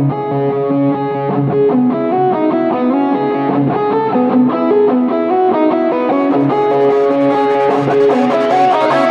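Intro music: an electric guitar riff of held, changing notes, with a swell building in the upper range over the last three seconds.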